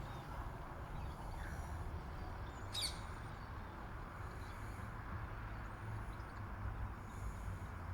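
Outdoor ambience by the river: a steady low rumble, with a single short, high bird call about three seconds in.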